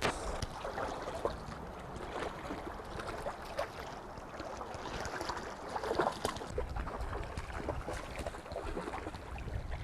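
Creek water flowing steadily, with a few short splashes and knocks scattered through.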